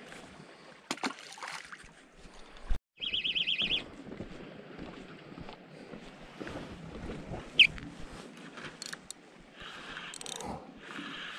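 Spinning fishing reel being cranked, its gears whirring steadily as line is wound in during the last couple of seconds. Before it come rod and line handling noises, a short fast rattling buzz about three seconds in and a single sharp high squeak about seven and a half seconds in.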